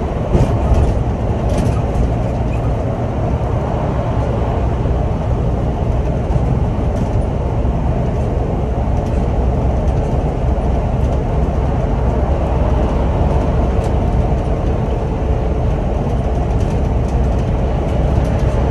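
Steady interior noise of a Scania OmniLink city bus cruising on a motorway: a low drone of engine and road rumble, with a faint steady tone and a few light ticks or rattles now and then.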